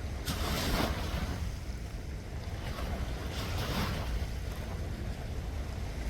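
Sea waves washing in twice, two short swells of hiss, over a steady low rumble of wind on the microphone.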